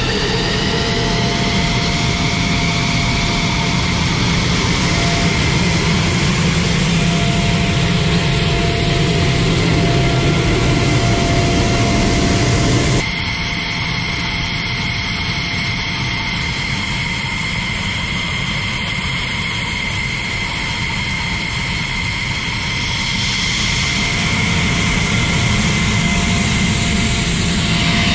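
F-16 fighter jet's turbofan engine running at ground idle: loud, steady running noise with a high turbine whine that rises at first and then holds steady. About halfway through the sound drops suddenly in level, then builds back up near the end.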